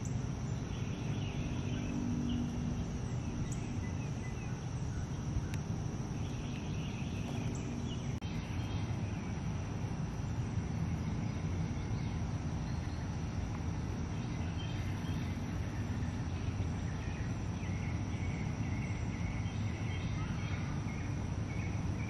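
Outdoor backyard ambience: a steady high-pitched insect drone over continuous low background noise, with small birds chirping now and then, in a few short bursts.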